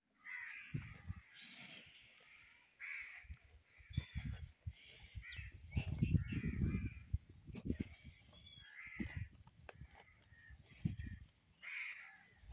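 Water buffaloes munching chopped green fodder from a trough: low, irregular crunching bursts, loudest in the middle. Over it come repeated harsh cawing calls from birds.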